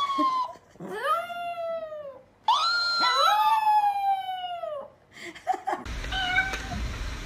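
Chihuahua howling: a series of long howls that rise and then slide down in pitch, two of them overlapping in the middle, ending about five seconds in.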